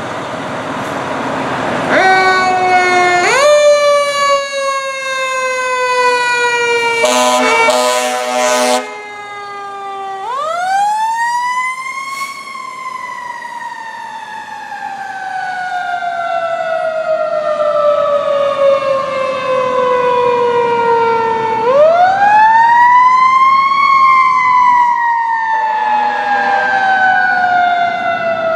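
A 2014 Pierce Arrow XT fire engine's Federal Q mechanical siren, revved in short bursts and then wound up fully twice. Each time the pitch climbs to a peak and then coasts slowly down over about ten seconds. A horn blasts for about two seconds around seven seconds in.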